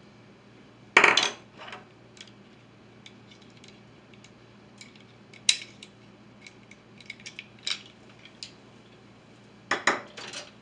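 Plastic measuring spoons and scoops being handled and set down on the counter: a loud clack about a second in, another in the middle, scattered light clicks and taps, and a couple of knocks near the end.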